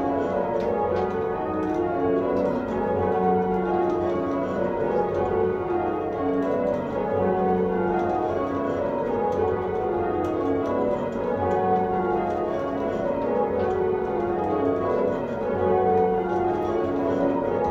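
Church tower bells rung full-circle in change ringing, heard from the ringing chamber below. A steady stream of bell strikes falls in rows that step down in pitch, one row after another.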